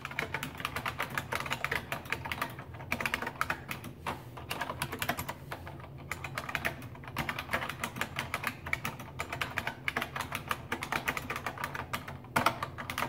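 Fast typing on a Unicomp Classic buckling-spring keyboard: a dense run of sharp key clicks, with a few brief pauses.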